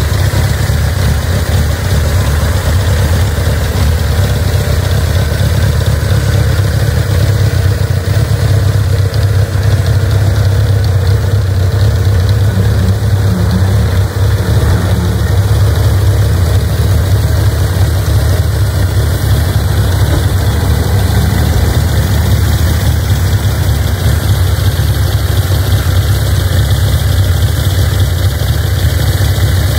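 Suzuki GSX750E's air-cooled inline-four engine idling steadily, its exhaust heard through the twin chrome mufflers.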